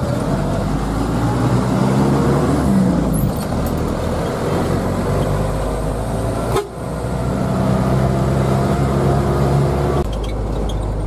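Diesel engine of an Elf minibus running under way, heard from inside the cabin as a steady low drone that rises and falls with the revs, with a brief break about two-thirds of the way through.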